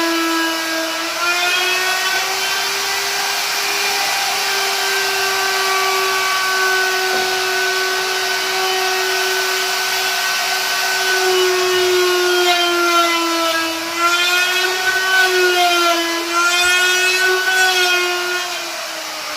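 Electric wood router running at high speed and cutting into wood: a steady high whine over a hiss. The pitch sags and recovers as the bit loads up, most often in the last few seconds, and the motor begins to wind down right at the end.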